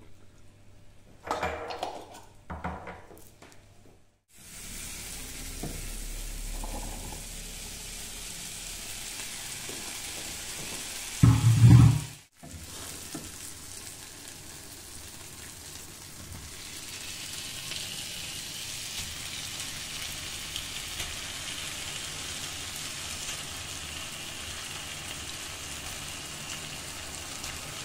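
Food sizzling in a frying pan, with a few short clatters near the start and one loud thump about eleven seconds in. The sizzling gets stronger about halfway through, once diced raw chicken is in the pan.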